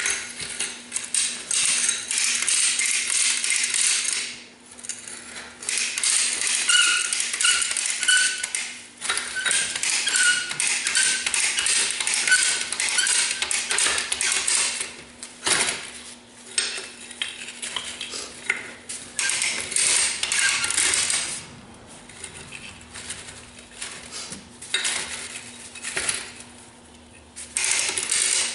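Metal clinking and clattering of a steel skid steer track being handled and fitted back onto the machine's tire, in bursts with short pauses.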